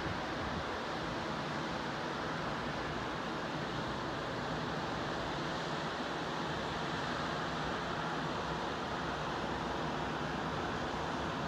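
Steady, even outdoor rushing ambience with no distinct events.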